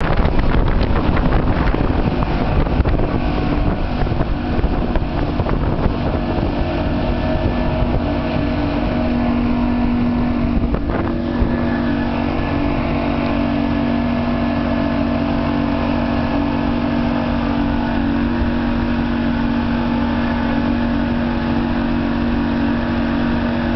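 Outboard motor of a rigid inflatable boat running at speed, with the rush of wind and water past the hull; the engine's steady hum grows more prominent about halfway through.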